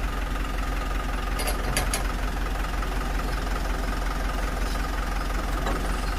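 An engine idling steadily. Three quick metallic clinks come about a second and a half in, from the load's tie-down chain being handled.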